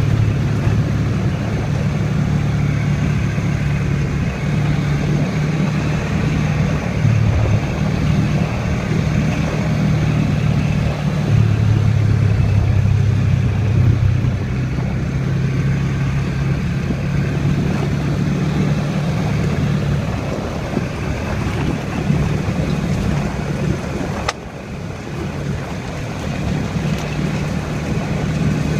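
ATV engine running steadily as it rides a dirt trail, its pitch stepping up and down with the throttle, with wind and tyre noise over it. A click and a brief drop in level come about 24 seconds in.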